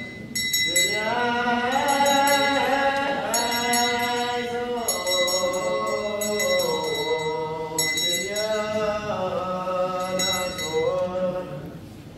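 Orthodox clergy singing a slow, drawn-out funeral chant, the voices gliding between long held notes, with small metal bells jingling in short bursts every second or two.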